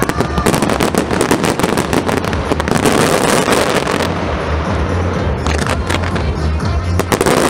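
Fireworks display: a dense, rapid crackle of many small bangs and pops from aerial bursts and low fountains, thinning briefly a little past halfway before picking up again.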